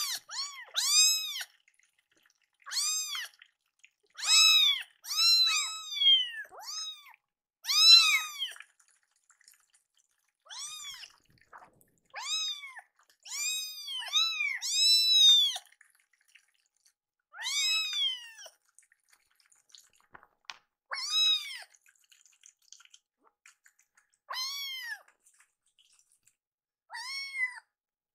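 Baby kittens meowing over and over in high, rising-then-falling cries of about half a second each, with short pauses between them. They are hungry kittens crying for their food.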